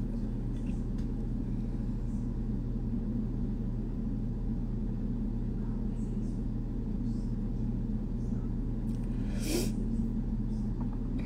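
Steady low background hum in an otherwise wordless stretch, with one short hiss-like sound about nine and a half seconds in.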